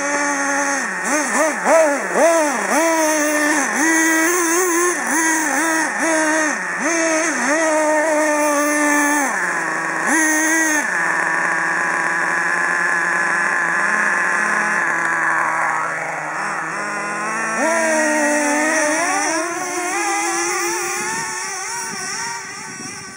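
Nitro RC truck's small two-stroke glow engine revving in quick repeated blips for about the first ten seconds, then running steadily and revving up again, before dropping away near the end.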